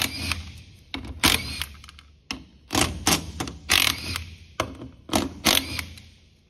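Cordless impact wrench hammering in several short bursts as it spins out the four bolts that hold the plastic fan blade to the fan clutch.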